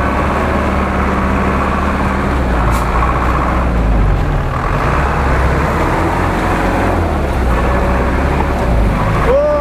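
GAZ-66 off-road truck's engine running as the truck drives slowly through deep mud on large mud tyres, with a shift in the engine's note about halfway through.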